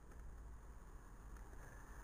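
Faint, steady low rumble of road traffic passing through a village.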